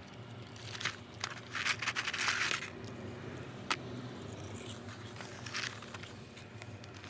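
Curly fries being eaten close to the microphone: rustling and crunching from the paper fry tray and from bites and chewing, in a few short spells with one sharp click about halfway.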